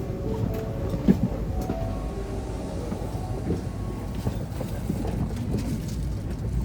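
Low steady rumble of a moving vehicle, with scattered knocks and rattles.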